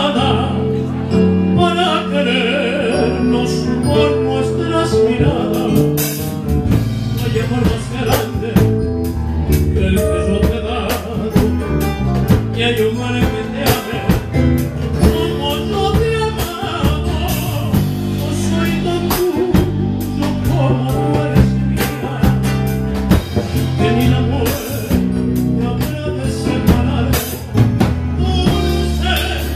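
Live band music: an electronic keyboard played over a moving bass line and regular drum hits.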